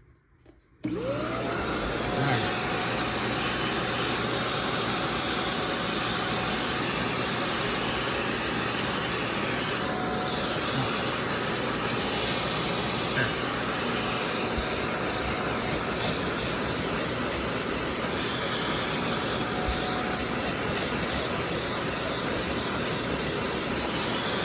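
Bissell Little Green Max Pet portable carpet cleaner switched on about a second in, its suction motor spinning up with a rising whine and then running steadily as it sprays and sucks up cleaning water from carpet stains.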